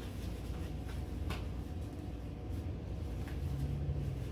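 Hands stretching and tugging a fabric seat cover over a baby rocker's tubular frame: soft rustling and handling with a few light clicks and taps, the sharpest about a second in.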